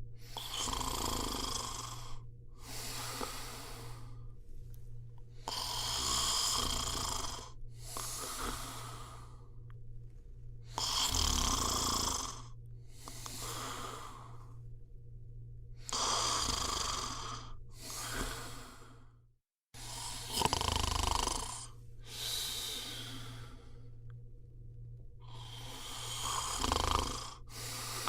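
A person snoring in a slow, even rhythm, a noisy breath about every two and a half seconds. The sound cuts out for an instant about two-thirds of the way through.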